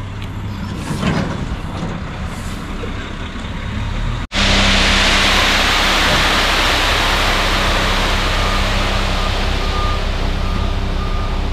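Concrete mixer truck's diesel engine running, much louder after a sudden cut about four seconds in. Faint short beeps come and go near the end.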